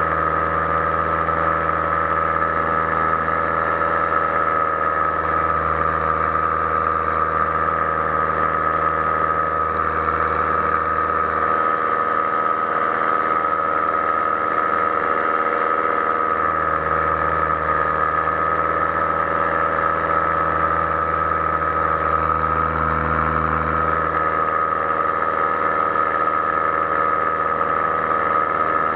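Powered paraglider's backpack engine and propeller running at a steady cruise throttle: a constant, even drone with a strong high whine. The deepest part of the drone fades for a few seconds midway.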